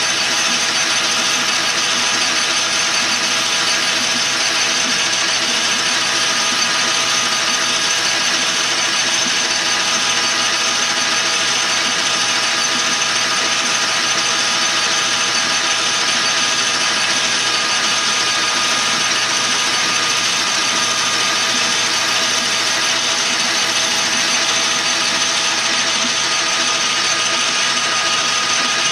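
Metal lathe running steadily with a whine of several steady gear tones over a hiss as it turns a metal tube.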